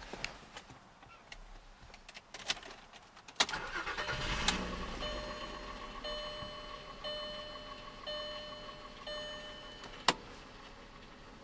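A few clicks, then a 12-valve VR6 engine cranks briefly about three and a half seconds in, catches and settles into a steady idle. An electronic warning chime repeats about once a second for several seconds over the idle. A single sharp click sounds near the end.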